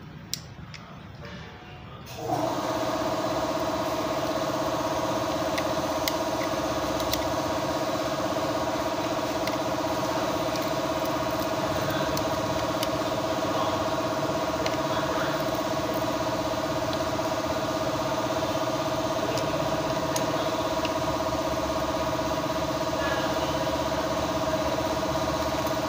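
A motor or engine starts about two seconds in and runs steadily, with a constant whine over its running noise.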